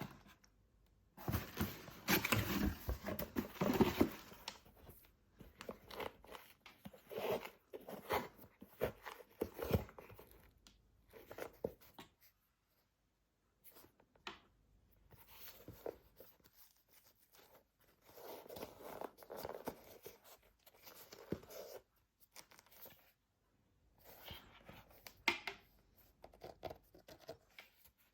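Packaging being handled and torn while a box of football boots is unboxed: irregular rustling and tearing in bursts with short pauses, busiest in the first few seconds.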